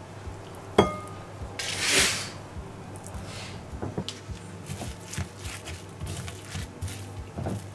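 Kitchen handling sounds: a sharp knock about a second in and a short hiss, then light scrapes and taps of a silicone spatula mixing a soft shrimp paste in a ceramic suribachi.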